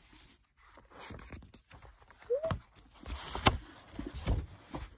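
Paper rustling and handling knocks as a folded glossy poster is pulled out and opened up, with irregular taps, the sharpest about three and a half seconds in.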